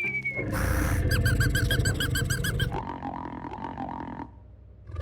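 Cartoon sound effects: a short high whistle, a brief burst of noise, then a quick run of rhythmic squeaks, about six a second over a low rumble, followed by a steadier tone that cuts off near the end.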